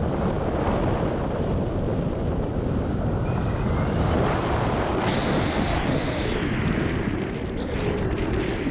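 Wind rushing over the microphone of a camera carried by a paraglider pilot in flight: a loud, steady rush of airflow noise.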